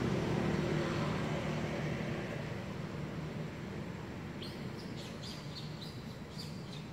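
Small bird chirping: a quick run of short, high chirps about two-thirds of the way in, over a steady low background rumble that fades during the first few seconds.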